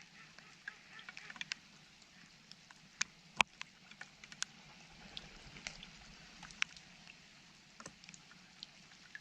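Quiet background hiss with scattered, irregular sharp ticks and taps, a few louder ones about three and three and a half seconds in.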